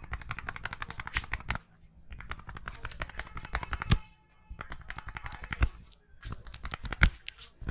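Indian head massage: hands rapidly slapping and tapping on a head, in quick runs of light clicking strikes broken by short pauses, with a few harder single smacks.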